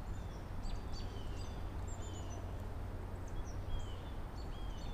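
Small birds chirping repeatedly: short high calls and a few downward-slurred notes, over a steady low rumble.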